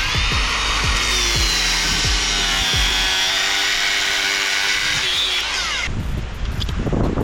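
Power tool cutting through a galvanized threaded-rod rung, running steadily under load for about six seconds, then stopping abruptly.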